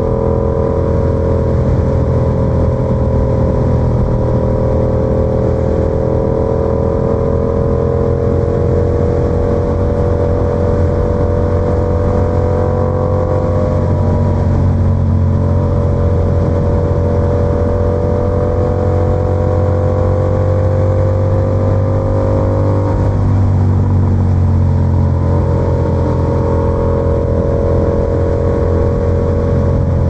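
Yamaha YZF-R7's parallel-twin engine running under way through an SC-Project exhaust, its pitch drifting gently with the throttle. About three-quarters of the way through the revs dip briefly, then climb again.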